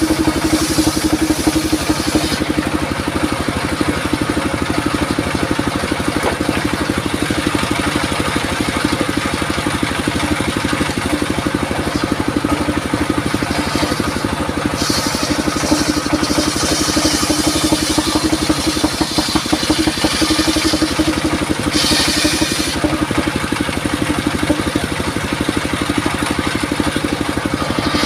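Engine-driven circular saw rig running steadily, with an engine hum and a fast even pulse. A few brief high hissing passes come at the start, about halfway and about two thirds through, typical of the blade cutting through wood.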